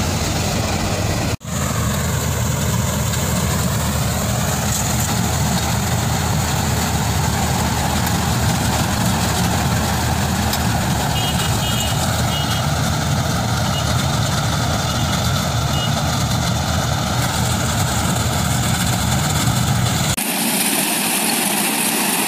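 Mini combine harvester engine running steadily under load while it harvests a crop. The sound changes abruptly twice, about a second in and near the end, where the footage jumps to another machine.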